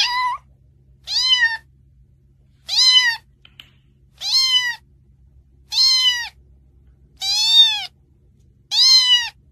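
A domestic cat meowing over and over, seven loud meows about a second and a half apart. Each one rises and then falls in pitch.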